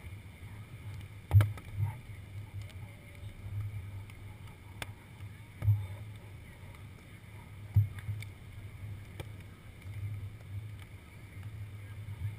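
Wind on the microphone of an action camera sitting on the sand, a steady low rumble, broken by a few sharp thumps, the loudest about a second and a half in.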